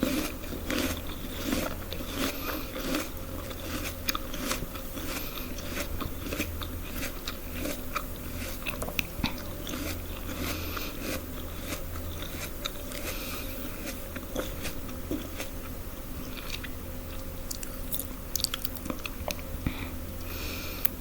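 A person biting and chewing crunchy food close to the microphone, with many small crisp crunches throughout.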